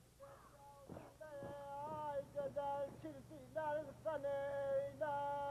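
A high voice, most like a woman's, singing a slow melody in long held notes that waver and bend between pitches, entering just after the start and growing louder. A couple of faint knocks sound near the start.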